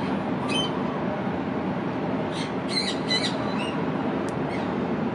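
Thai passenger train coaches rolling past, a steady rumble of wheels on the rails. A few short high chirps come once about half a second in and several more between two and four seconds in.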